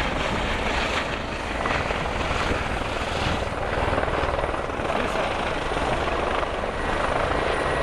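Several light turbine helicopters in the air at once, hovering and setting down one after another: a steady, dense mix of rotor chop and turbine whine.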